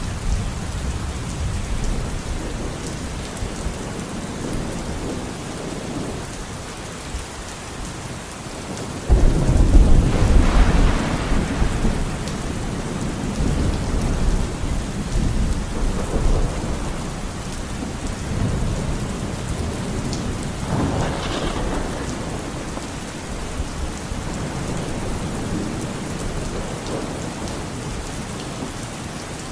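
Steady rain falling under a constant low rumble of thunder. About nine seconds in, a sudden loud thunderclap breaks and rolls on for several seconds, and a second, smaller crack of thunder comes about twenty seconds in.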